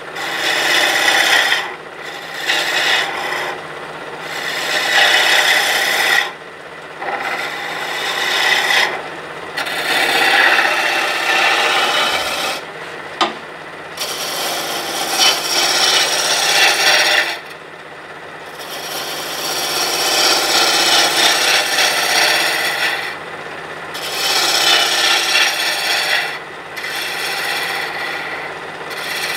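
Roughing gouge cutting a cherry blank spinning on a wood lathe, roughing it down to round. The cut comes in passes of a few seconds each, with short breaks where the tool comes off the wood.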